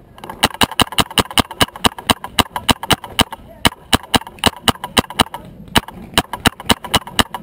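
Paintball marker firing a rapid string of sharp shots, about five a second, with a brief pause a little over five seconds in before it fires again.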